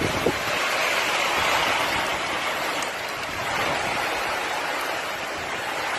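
Steady rushing noise of hurricane wind and driving water, a dense roar with no distinct events, easing a little after the middle.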